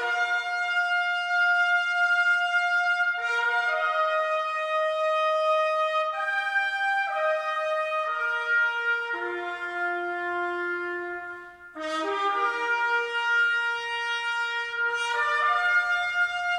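Recorded music played back through Tyler Woodmere II hi-fi loudspeakers: a slow melody of long held notes, with a brief break about eleven seconds in before the phrase resumes.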